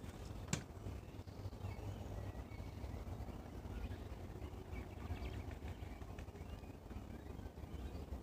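Outdoor ambience: a steady low rumble with faint bird calls, and one sharp click about half a second in.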